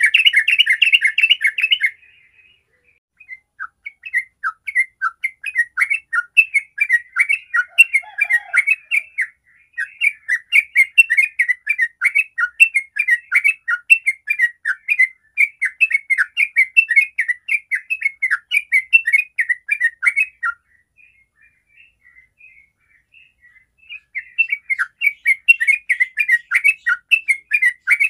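Yellow-vented bulbul singing a fast, rolling run of quick chattering notes. A short break comes about two seconds in, and a pause of a few seconds after about twenty seconds before the song starts again.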